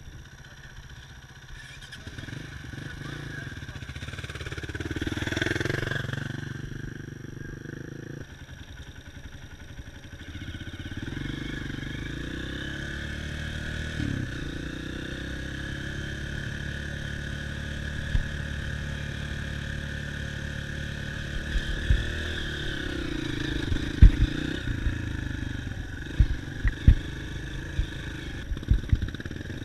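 Dirt bike engine running as it is ridden, its pitch and loudness swelling to a peak about five seconds in and then settling to a steadier run. Several sharp knocks and clatter come in the last third.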